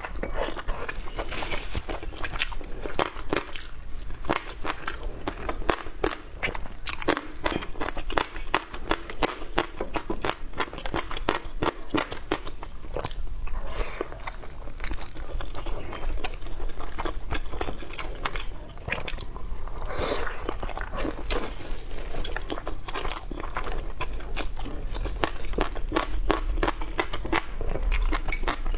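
Close-miked chewing and biting with crisp crunches, many small clicks a second.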